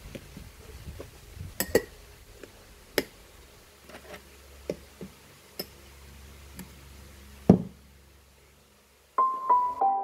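Light clinks and knocks as a clear drinking tumbler and its straw are handled: single sharp taps at uneven intervals, the loudest one about seven and a half seconds in. Near the end, soft piano music starts with a few descending notes.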